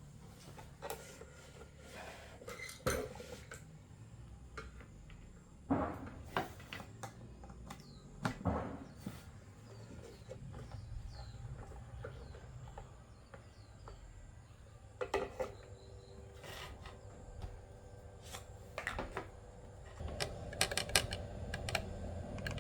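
Irregular clinks, knocks and clatters of tools and small hard parts being handled and set down, over a low steady hum.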